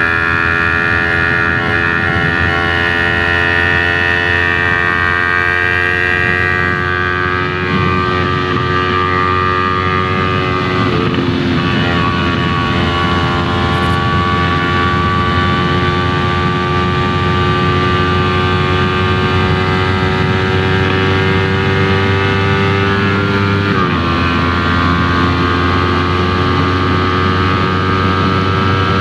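Yamaha R3 parallel-twin engine through an Arashi aftermarket exhaust, under way. The note climbs slowly and drops suddenly twice, about 11 seconds in and again near 24 seconds, as the rider shifts up a gear.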